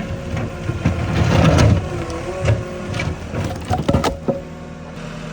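Engine of a vehicle or piece of site machinery running steadily with a held whine. A few sharp metallic clanks come about four seconds in.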